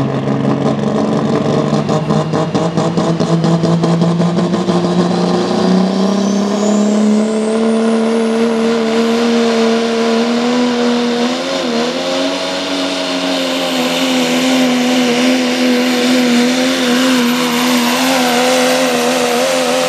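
Modified 4x4 pulling truck's engine revving up as it launches, its pitch climbing steadily for the first several seconds, then held at high revs under load while it pulls the sled, dipping briefly about halfway through. A faint high whine rises over it early on.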